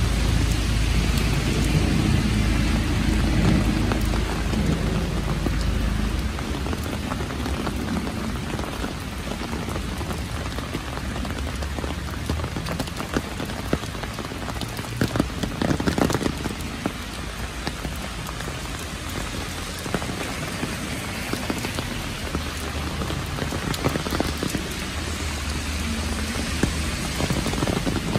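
Heavy rain pouring steadily onto a wet street and pavement, with a low rumble of thunder dying away over the first several seconds and another building near the end.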